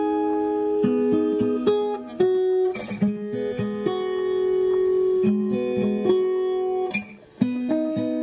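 Background music: a plucked acoustic guitar playing a melody, with a short break about seven seconds in.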